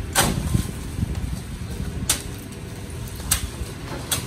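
Sugarcane stalks being loaded into a truck's cargo bed: four sharp knocks at uneven intervals of one to two seconds as bundles land on the load and strike the bed, over a steady low rumble.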